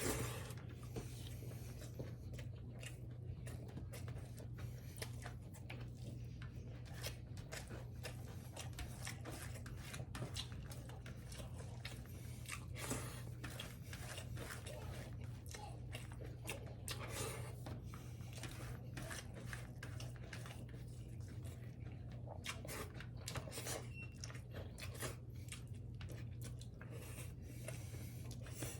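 A person chewing and biting food close to the microphone, with many small irregular mouth clicks and crunches. This is mukbang eating of pork, greens and rice, over a steady low hum.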